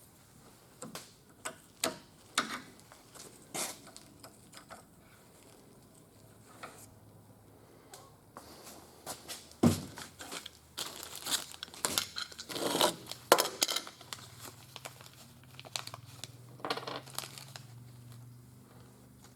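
Scattered clicks, light knocks and rustling from hands working on metal parts and tools. The sounds come in short separate strokes, then grow busier with rustling and scraping about ten to fourteen seconds in.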